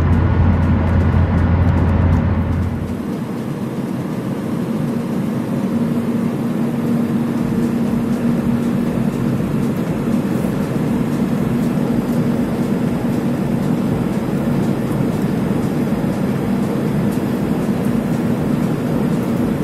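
Steady cabin noise of a Boeing 737-800 in flight: an even rush of air with a low hum. About three seconds in, the deepest rumble drops away and the level dips slightly.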